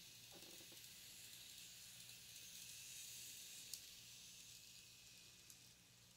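Faint hiss of an N-scale model diesel locomotive running along the track with its cars, swelling as it passes and then fading, with a small click about four seconds in.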